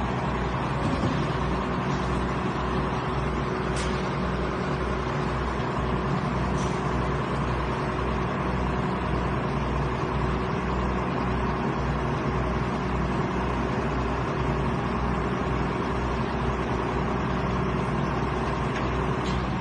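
Diesel engine of a rotary piling rig running steadily, with a regular low throb.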